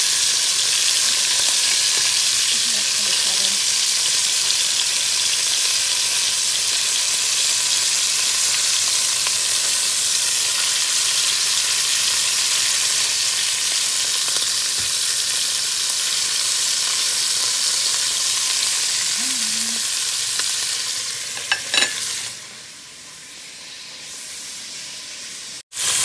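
Beef rouladen sizzling and spitting as they brown in hot oil in a pot, turned now and then with tongs. Near the end there are a few sharp clicks, and the sizzle then drops much quieter.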